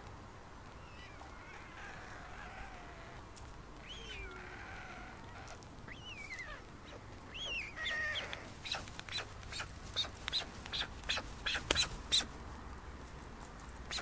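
White storks at the nest bill-clattering: a run of sharp, wooden clicks, about three a second and quickening, starting a little past halfway and stopping about two seconds before the end. This is the greeting display as a second adult flies in. Before it come a few short whistled calls that rise and fall.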